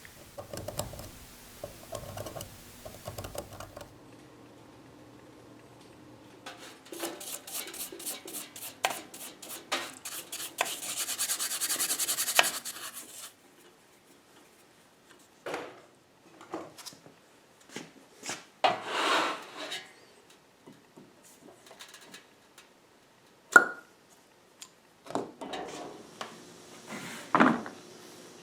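Hand work on metal lathe parts: a run of quick scrubbing or rasping strokes that speed up into one continuous scrub, then scattered scrapes, knocks and clinks of metal parts being handled.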